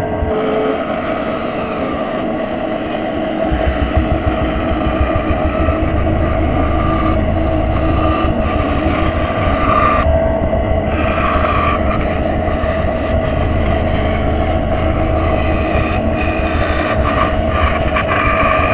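Benchtop band saw running steadily and cutting a curve through a mahogany board, its motor hum mixed with the blade's cutting noise. The cutting sound lets up briefly about ten seconds in, then carries on.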